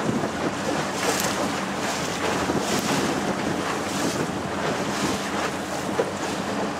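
Small motor boat running on open water, with wind buffeting the microphone and waves washing, all as a steady rushing noise with a faint engine hum underneath and occasional gusts.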